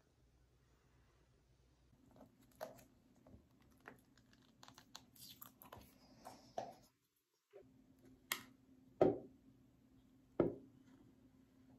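Plastic toiletries being handled at a counter: a toothpaste tube and a pump bottle of face cleanser. There is a run of small clicks and rustles, then three sharper knocks near the end, over a faint steady hum.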